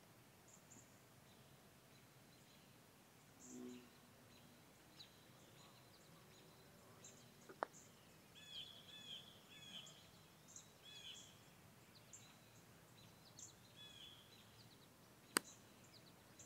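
Quiet outdoor background with scattered bird chirps. About halfway through comes the soft click of a putter striking a golf ball, and near the end a sharper, louder click.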